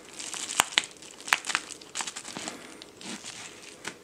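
Thin plastic packaging crinkling as it is handled, with several sharp little clicks mixed in.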